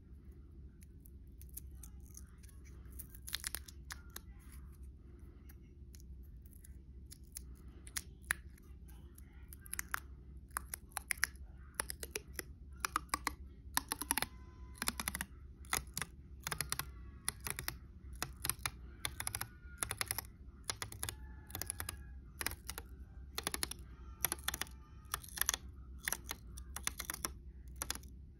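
Paper wrapper of a Phano china marker (grease pencil) tearing as its pull-string slits it and the strip is unwound: a run of small irregular crackles and ticks, sparse at first and coming thick and fast from about ten seconds in. A low steady hum runs underneath.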